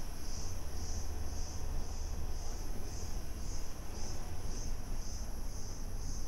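Insects chirring in a high, pulsing drone that swells about twice a second, over a steady low rumble.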